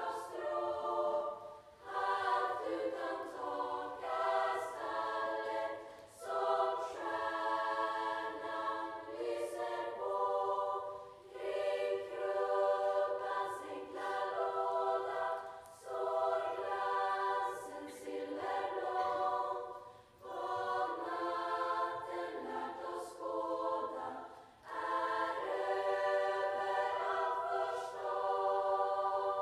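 A Lucia choir of high voices singing in phrases of a few seconds, each separated by a brief breath. The singing fades out near the end.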